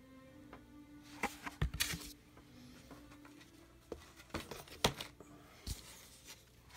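Thick cardboard game boards being handled and turned over by hand, giving a scatter of light taps and scrapes as board meets board and the box.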